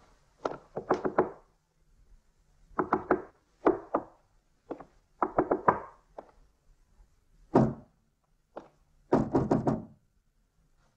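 A fist knocking on hollow wooden wall panelling: a series of short bursts of quick raps, one to several strikes each, with brief pauses between.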